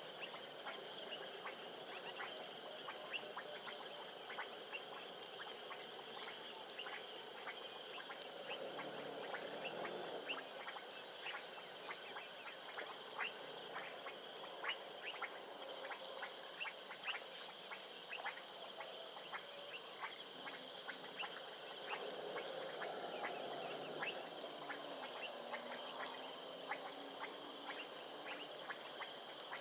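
Frog and insect chorus at a waterhole: a high insect trill pulsing about once or twice a second under many short, sharp frog clicks. Twice, about a third of the way in and again near three quarters, a swell of lower calls rises over the chorus.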